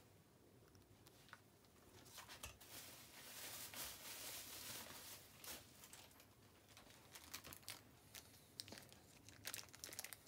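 Faint crinkling of a clear plastic bag being handled. It starts about two seconds in as a dense rustle lasting a few seconds, then thins to scattered crackles.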